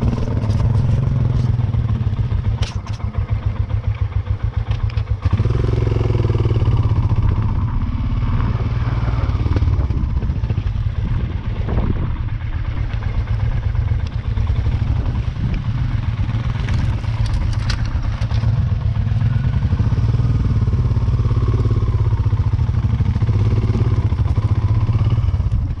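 Motorcycle engine running steadily, with a few sharp knocks and rattles from the bike.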